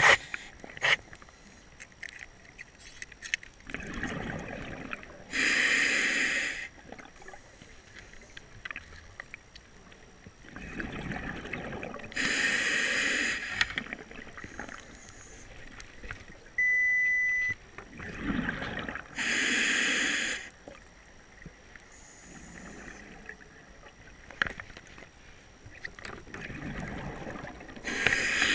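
A diver breathing through a scuba regulator underwater, in slow cycles about seven seconds apart: each breath is a hiss from the regulator beside a burble of exhaled bubbles. A short steady electronic beep comes about halfway through.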